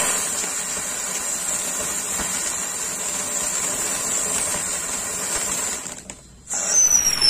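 Anar (flower-pot fountain firework) erupting and spraying sparks with a loud, steady hiss. About six seconds in it cuts off briefly, then a second loud burst of hiss starts, with two falling whistles.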